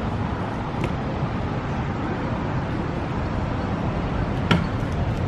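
Steady road traffic noise, with a faint click about a second in and one sharp clack about four and a half seconds in, a stunt scooter striking the concrete.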